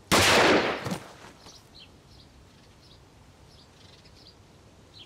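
Gunfire right at the start, loud and sudden, dying away within about a second. After it, birds chirp faintly.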